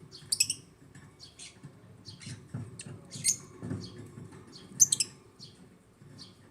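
African lovebirds chirping: a flock's short, sharp, high-pitched calls in quick irregular bursts, the loudest about half a second in and again near five seconds.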